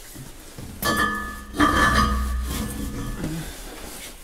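Two metallic knocks against steel parts under a tractor, about a second apart. Each rings on with a clear metallic tone that fades over a second or so.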